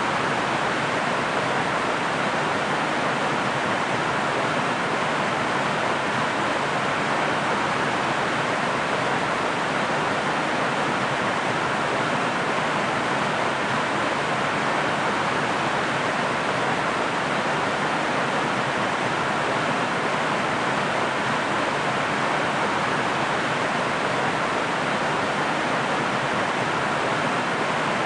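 Waterfall: a steady, unbroken rush of falling water, even and hissing, with no splashes or changes standing out.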